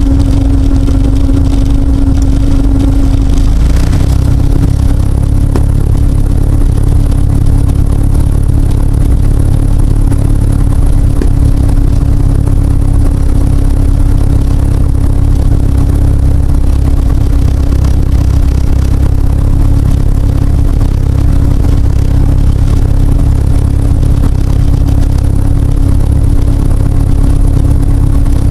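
Citabria's propeller-driven aircraft engine running steadily at low power while taxiing, heard loud from inside the cockpit, with a small change in the engine note about four seconds in.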